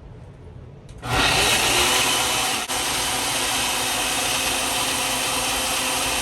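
A blender switches on about a second in and runs steadily at high speed, blending a walnut smoothie, with a brief dip in its sound near the three-second mark.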